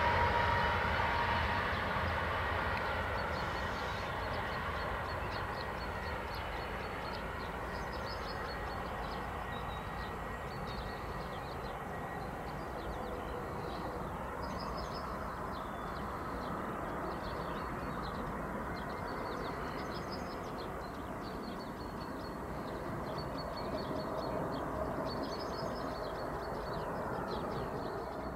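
CRRC Bison electric locomotive running on the test track. A whine from its traction drive fades over the first couple of seconds, leaving a steady distant rumble that swells slightly near the end. Small bird chirps come through every few seconds.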